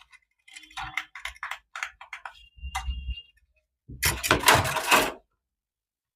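Toy packaging being handled: a run of clicks and small rattles, then about a second of loud rustling about two-thirds of the way through.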